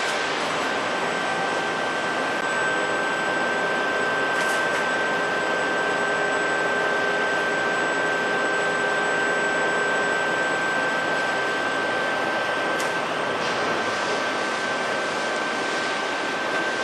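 DoAll 2608NC vertical band plate saw running under power: a steady mechanical whir from the machine, with a steady high-pitched whine throughout.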